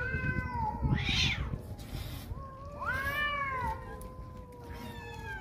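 A crowd of hungry stray cats meowing at feeding time, several overlapping drawn-out meows that rise and fall, with a short hiss-like burst about a second in.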